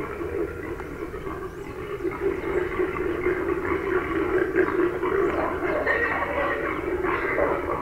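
Feral hogs squealing and grunting in a chorus of overlapping calls, the kind of group squealing used to call in a boar. It grows louder about two seconds in.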